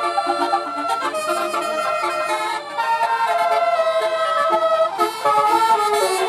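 Bus 'telolet' musical air horn playing a multi-note melody, several horn tones sounding together and changing pitch several times a second. A hiss of noise joins the horns about five seconds in.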